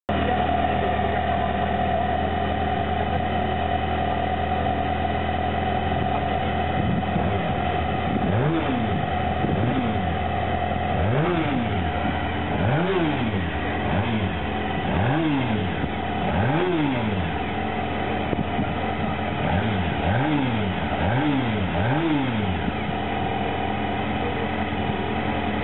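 Honda NR's oval-piston V4 engine idling steadily, then from about eight seconds in revved in about ten quick throttle blips, each rising and falling in pitch.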